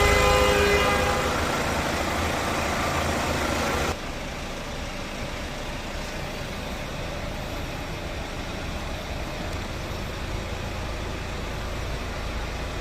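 The Santa Fe's 2.0-litre diesel engine running steadily with a low hum. About four seconds in, the sound drops suddenly to a quieter, even hum.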